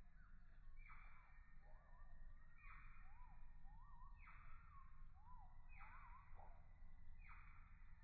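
Faint birdsong: a bird repeats the same short phrase about every one and a half seconds, with softer wavering whistled notes between the phrases, over a steady low rumble.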